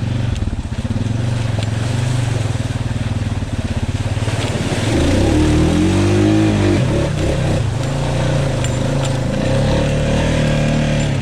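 Honda Rubicon ATV engine pulling hard through deep mud, revving up about five seconds in and easing back down as the tires dig through.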